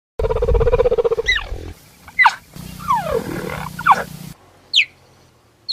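Big cat calls in a run of short clips: a rough, pulsing growl, then several calls that fall in pitch, and near the end sharp, high chirps that drop quickly, about a second apart.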